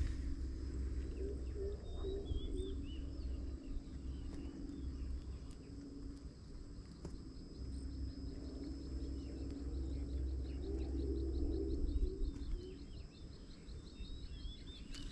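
Wind rumbling on the microphone, with small birds chirping now and then over a faint, steady high whine. In the second half, a rapid, even ticking joins in.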